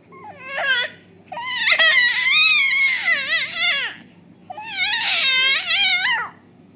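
A five-month-old baby cries out three times in high, wavering wails: a short one at the start, then two long ones, the middle one the longest.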